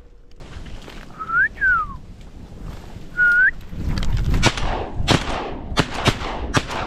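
Two loud whistles, the first rising then falling and the second a shorter rise, followed from about four seconds in by shotgun shots fired in quick succession at ducks, over a low rumble of wind.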